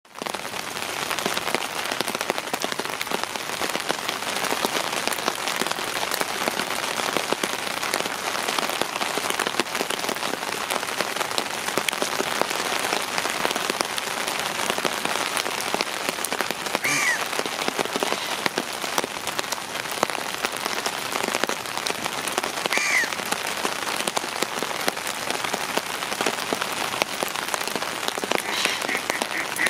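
Heavy rain falling on open water, a steady dense hiss. Two short calls break through about halfway, a few seconds apart, and a quick run of similar notes comes near the end.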